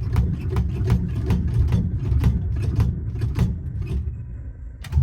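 Old Ford Falcon's engine being cranked over by the starter during a hard start, a steady churning with a regular beat of about two to three pulses a second. The engine fires and gets louder at the very end.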